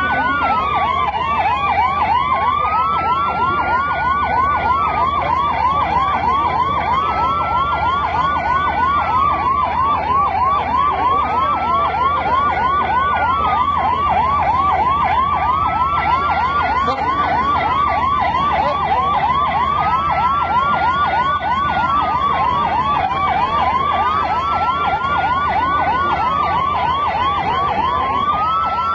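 Two emergency vehicle sirens sounding together: one in a fast yelp, the other in a slow wail that rises and falls about every four seconds.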